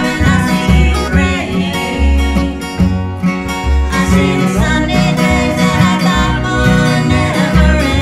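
Live acoustic bluegrass-style band: acoustic guitars strummed and picked over plucked upright bass notes, with two women's voices singing.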